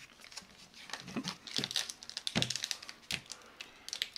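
A stack of trading cards handled and flicked through by hand, then set down: a string of light clicks and rustles.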